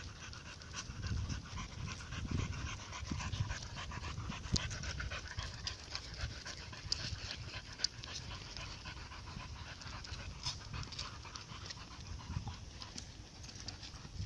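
A dog panting as it walks, with scattered light clicks and a low rumble underneath.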